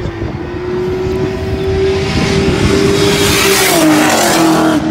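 A car driving hard past on the race track, its engine note held steady and growing louder as it approaches, then dropping in pitch as it goes by.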